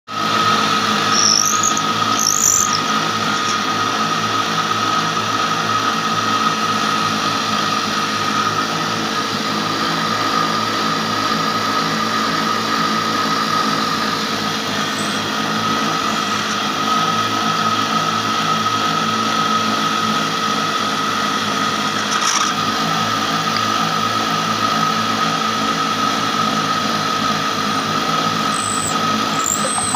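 Belt-driven spinning cutter on a homemade woodworking bench, running steadily with a constant whine while a wooden slat is held against it. A few brief high squeaks come about one to three seconds in, again about 22 seconds in, and near the end.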